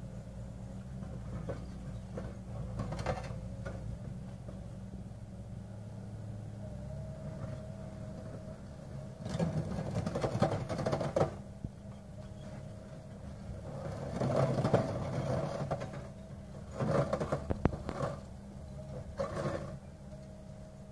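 Excavator's diesel engine and hydraulics running steadily while its HC hydraulic concrete crusher jaw bites into concrete blocks, giving four loud bouts of crunching and cracking, the first about nine seconds in and the last near the end.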